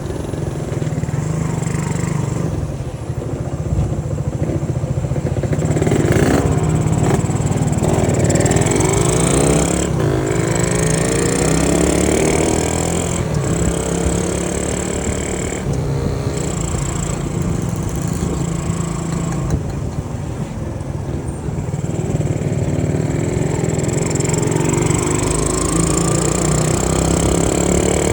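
Honda C70 step-through motorcycle's single-cylinder four-stroke engine running on the move, its note rising and falling several times as it pulls and changes pace.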